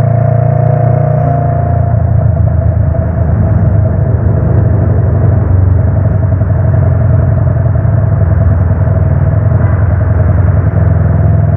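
Wind rumbling loudly over a microphone on a moving motorcycle at speed, mixed with the engine and road noise, with a faint steady tone above it.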